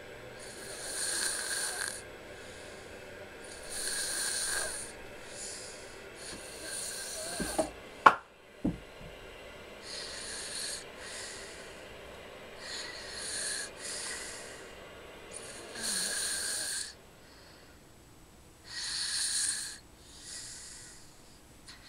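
Snoring: a slow, noisy, hissy breath about every three seconds. A single sharp click about eight seconds in is the loudest sound.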